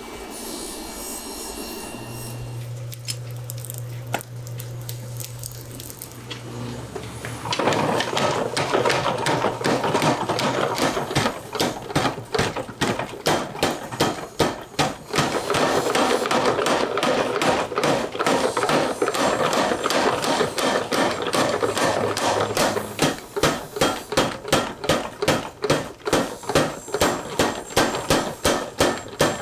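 Mechanical power hammer pounding a red-hot steel knife blank. A steady hum runs for a few seconds, then the blows start about seven seconds in, rapid at first and slower near the end at about three a second.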